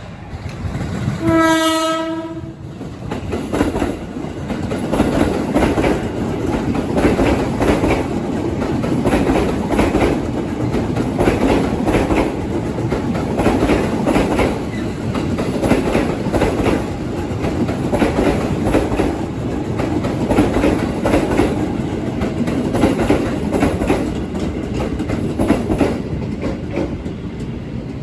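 A train sounds its horn in one blast of about a second and a half, then runs past with a loud, steady rumble and wheels clattering over the rail joints.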